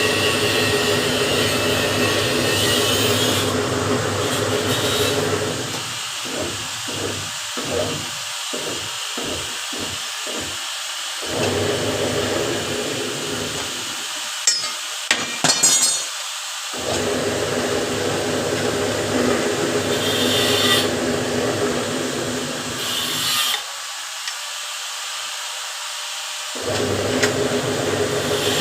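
Workshop power tool or machine motor running with a steady hum. Its low hum drops out in a quick series of short breaks around the middle and again for a few seconds near the end.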